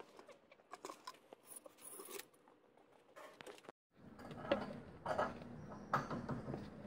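Small scrapes and knocks of a plastic bucket as anchoring cement is poured from it into the hole at an iron railing's base. The sound drops out briefly just before four seconds in, then comes back as denser handling noise with repeated knocks.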